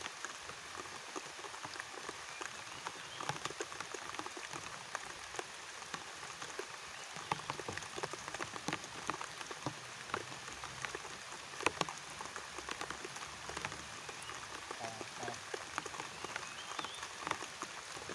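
Steady rain: a constant hiss with many single drops ticking sharply close by.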